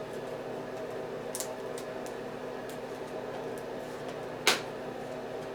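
Steady room hum with a few faint ticks, then one short scrape about four and a half seconds in: a cardboard product box being handled.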